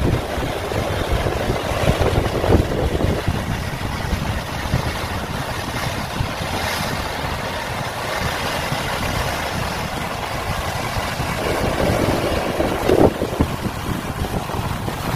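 Sea surf breaking and washing over rocks, with wind buffeting the microphone. The wash swells louder a couple of seconds in and again near the end.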